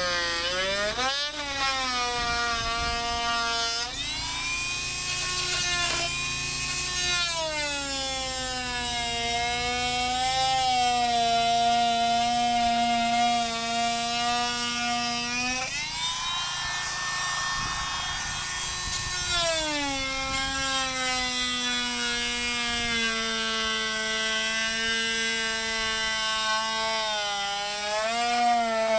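Electric power drill running under load, boring through the wall: its motor pitch sags and recovers as the bit bites, with a stretch of harsher cutting noise about two-thirds of the way through.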